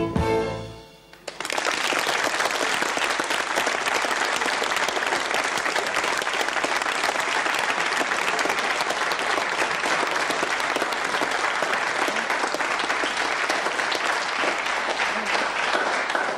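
The last notes of a song's instrumental accompaniment end about a second in, and a studio audience then applauds steadily.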